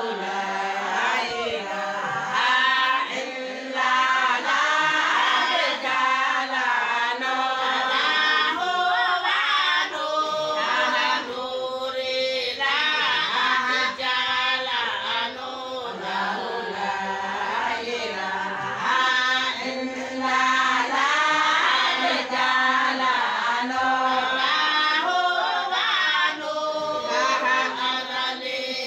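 A group of Somali Bantu women singing together in chorus.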